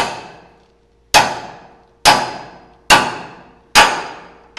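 A hammer striking a pickle fork wedged between the drag link end and the pitman arm, five sharp ringing metal blows a little under a second apart, driving the fork in to break the tapered joint loose.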